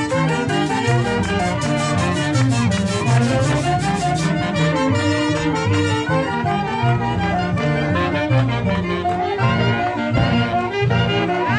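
Band with brass playing dance music, trumpets and trombones carrying a melody over a steady bass line, with a regular drum beat through the first four seconds or so.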